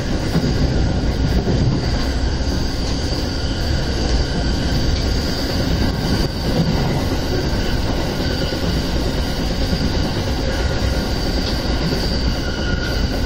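Electric commuter train running at speed, heard from inside the passenger car: a steady rumble of wheels on the track with a faint high whine over it.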